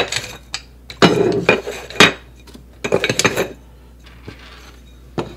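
Ceramic wall tiles clinking and scraping against each other and clacking down onto a countertop as they are pulled from their box, in several short clusters over the first three and a half seconds.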